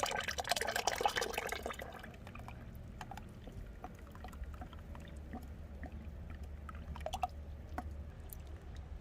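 Vinegar and boiling water being poured into a container, splashing loudest for about the first two seconds, then a low steady hum with a few faint clicks.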